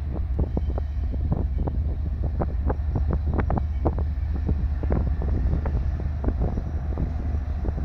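Two Union Pacific diesel-electric locomotives rumbling low and steady as they approach at the head of an intermodal train. Wind buffets the microphone with irregular crackles.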